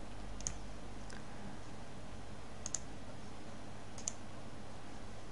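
Computer mouse button clicking a few times, sharp and light: once about half a second in, faintly a moment later, then a quick press-and-release pair near the middle and another about four seconds in. A steady low hum runs underneath.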